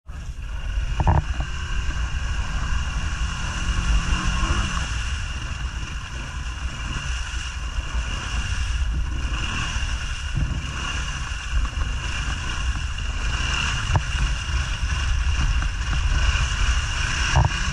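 Honda Foreman ATV's single-cylinder engine running under load as the ATV churns through deep mud on oversized mud tyres, with wind noise on the microphone.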